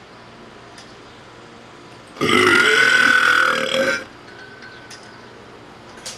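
A single long recorded belch, just under two seconds, played through computer loudspeakers. It starts about two seconds in and stops abruptly, much louder than the quiet background.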